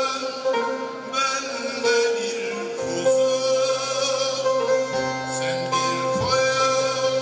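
A man singing a Turkish folk song (türkü) in long held notes, accompanying himself on a plucked long-necked bağlama (saz).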